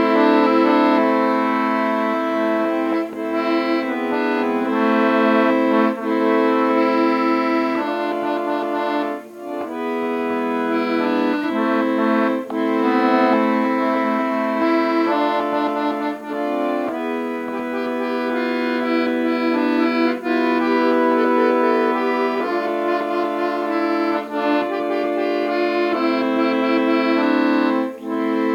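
Accordion playing a melody over held chords, the notes changing every second or so, with brief short breaks every few seconds.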